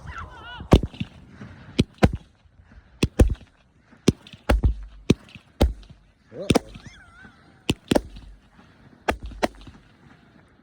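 Nine-shot consumer fireworks cake firing: a string of sharp reports, about one to two a second, several coming in quick pairs.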